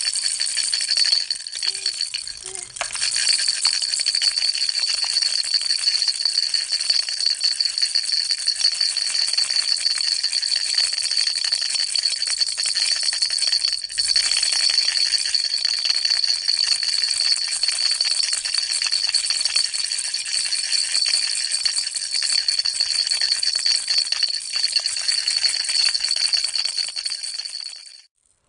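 Baby rattle shaken continuously: a dense, rapid rattling with a bright, steady ringing tone through it. It falters briefly about two and a half and fourteen seconds in, and cuts off suddenly just before the end.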